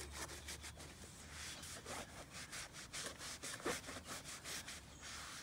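Microfibre towel rubbing back and forth over a rubber car door seal, working in a rubber treatment: a quick, rhythmic scrubbing of several strokes a second.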